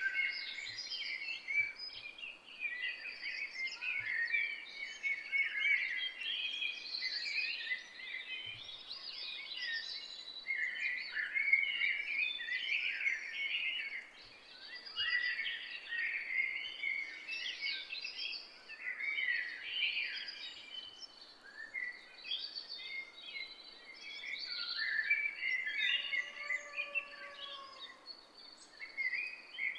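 A dense chorus of many small forest birds singing and chirping over one another. Near the end, a lower, longer whistled call sounds twice.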